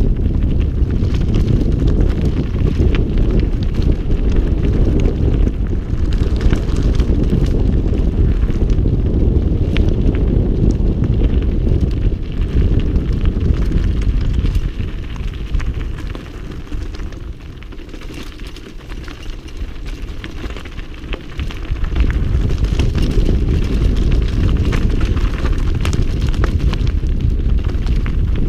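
Mountain bike descending a rocky, loose-gravel track: tyres crunching over stones and the bike rattling, under a heavy wind rumble on the microphone. The rumble and rattle ease off for a few seconds past the middle, then pick up again.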